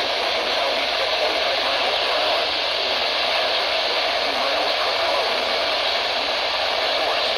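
Steady hiss of radio static from a weakly received broadcast station, with no voice clearly coming through.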